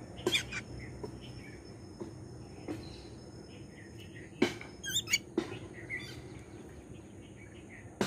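Babblers pecking at cooked rice on a wooden ledge: irregular sharp taps of beak on wood. Short bird chirps come between the taps, with a quick run of high chirps about five seconds in.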